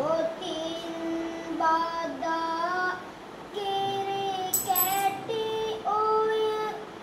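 A young novice monk's child voice singing Sinhala kavi bana, Buddhist verse sung in a chant, with no accompaniment. He holds long notes and slides slowly between them, taking a short breath between phrases about three seconds in.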